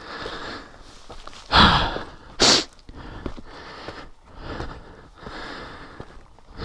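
A person breathing hard and puffing from the exertion of climbing a steep slope on foot in heavy riding boots. Two much louder puffs come close together about two seconds in.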